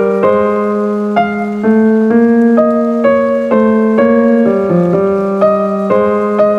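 Piano music: a steady line of notes, about two a second, over a sustained low note.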